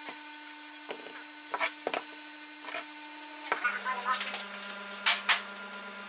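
A few light wooden knocks and rubs from a box-jointed wooden box being handled on a wooden workbench. Under them runs a steady low tone that drops in pitch a little past halfway.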